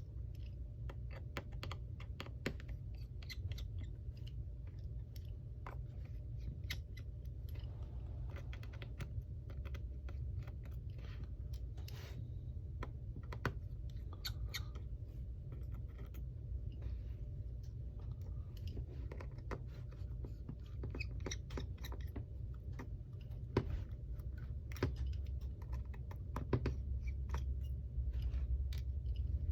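Small tools clicking and scraping irregularly against an opened iPhone X's internals as its battery and display connectors are pried loose and unplugged, over a steady low hum.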